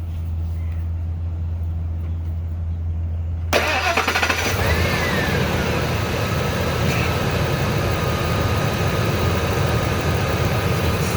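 Truck engine cranking and catching about three and a half seconds in, then idling steadily with a thin high whine over it. Before the start there is only a steady low hum.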